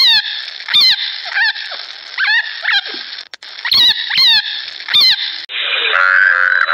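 A rabbit squeaking in a run of about nine short high calls, each falling in pitch. About five and a half seconds in, a frog's rattling croak takes over.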